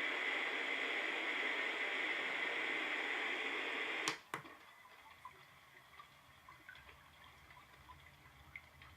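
NURSAL white noise machine's small speaker playing steady white noise; about four seconds in, two clicks of its button cut it off and switch to a much quieter trickling-water track with soft scattered drips.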